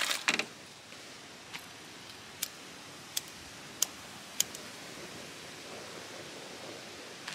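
Tap water splashing, cut off within the first half second, then a handheld lighter clicking five times at a cast-iron gas burner as it is lit.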